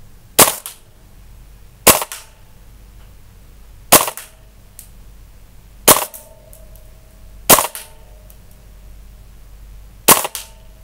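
VFC KAC SR-25 gas blowback airsoft rifle firing six single shots, one about every two seconds. Each shot is a sharp crack with a short tail.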